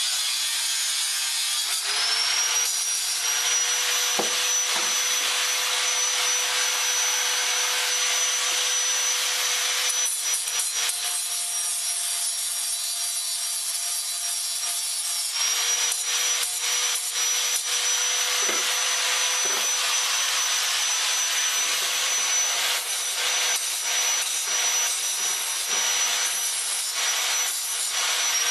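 Electric power tool winding up to speed about two seconds in and running with a steady high whine over a harsh abrasive hiss as it cuts or grinds metal stock. The whine weakens in the middle and comes back strongly just past halfway.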